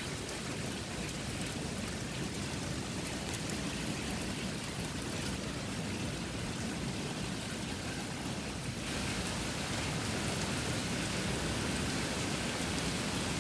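Heavy rain pouring steadily, a dense even hiss that grows a little louder and brighter about nine seconds in.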